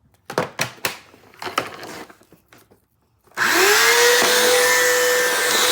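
A few sharp clicks and knocks, then about three and a half seconds in a Bissell CleanView vacuum cleaner's motor switches on, its whine rising in pitch as it spins up and settling into a loud, steady run.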